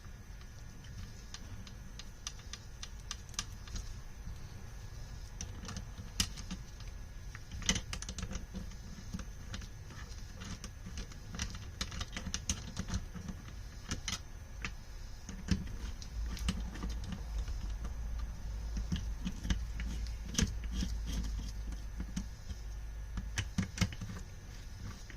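Irregular small metallic clicks and taps of hand tools and bolts while small bolts are fitted to a motorcycle carburetor rack's throttle shaft, fastening the slide arms and pulley segment.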